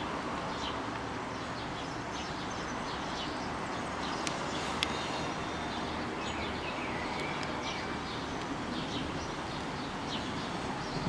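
Small birds chirping again and again over a steady low background rumble of city air and wind, with two sharp clicks about four and five seconds in.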